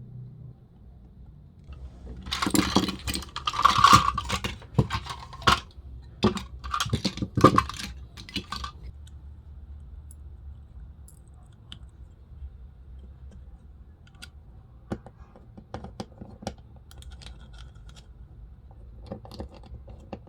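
Small hard parts being handled: several seconds of clicking and clattering, like small metal pieces clinking against each other and a hard surface, then a few scattered faint clicks near the end.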